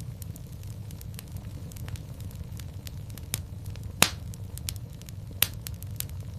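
Wood fire burning in a fireplace, crackling steadily over a low rumble of flame, with many small snaps and two louder pops, about four seconds in and again a second and a half later.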